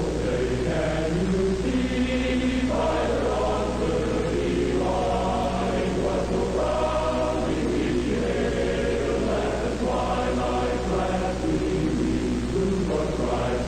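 Choir-like chanting voices holding long notes together, the pitches shifting every second or two, over a steady low hum.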